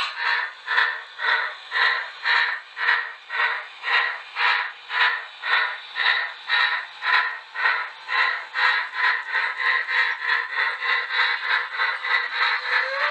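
Steam exhaust chuffs from the sound decoder of an HO-scale Precision Craft Models Reading T-1 locomotive. They start at about two a second and quicken to three or four a second as the train gathers speed, and a whistle begins right at the end.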